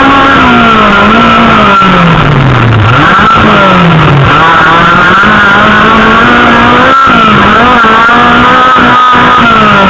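Autocross car's engine heard from on board, loud enough to overload the recording. The revs drop twice, about three and four seconds in, each time climbing back, then hold fairly steady. A few short knocks are heard.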